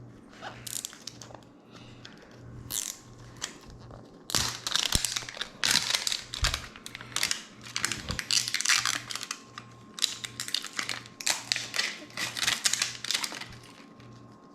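Packaging crinkling and tearing as a Mini Brands toy capsule is unwrapped by hand, in a long run of rustling bursts that starts about four seconds in and dies down near the end.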